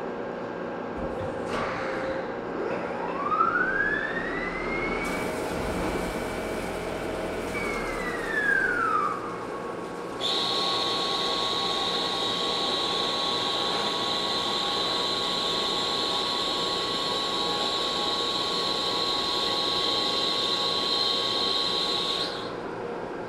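CNC lathe machining a small screw with coolant running: a motor whine climbs in pitch as the spindle speeds up, holds for a few seconds, then falls away as it slows. About ten seconds in, a louder, steady high whine starts and runs until shortly before the end, then cuts off.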